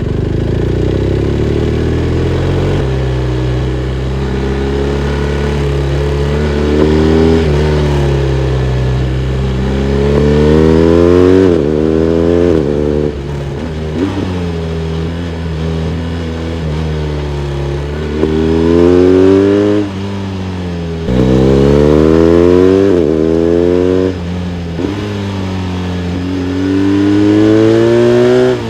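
BMW R1250RS boxer twin engine accelerating hard through the gears. Its note rises and drops sharply at each upshift, about four times, with a steadier cruising stretch in the middle.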